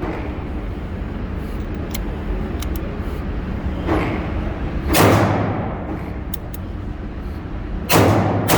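Revolver shots from a Rock Island Armory AL 9.0 in 9mm: a lighter report about four seconds in, then louder shots about a second later and near the end, each with a trailing echo.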